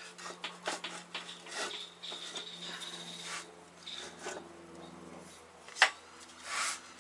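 A steel wheel spindle and wooden blocks shifted and scraped into place on a shop press bed: irregular rubbing and small knocks, with one sharp knock near the end.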